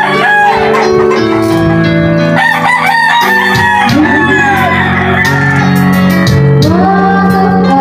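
Roosters crowing several times over loud music with sustained bass notes.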